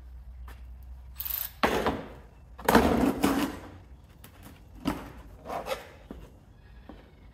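Large plastic engine undercover being pulled free and set down, with two bouts of scraping and clattering followed by a few lighter knocks.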